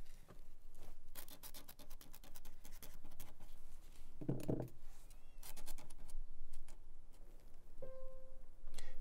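A feather quill pen scratching across paper in quick strokes, in two spells of writing. Quiet background music plays underneath, with a held note coming in near the end and a short low sound about four seconds in.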